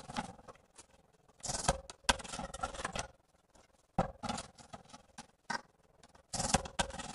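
Manual rail tile cutter working a ceramic tile: short scratchy strokes of the scoring wheel and sharp clicks and knocks as the tile is snapped and tiles are handled on the cutter, in several brief bursts with quiet gaps between.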